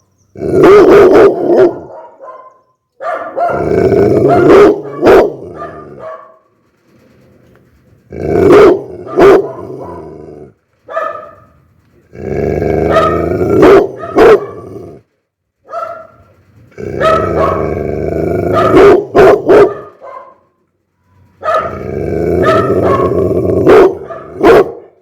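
Pit bull barking angrily in about six bouts, each a low growl breaking into a few sharp barks, with short pauses between bouts.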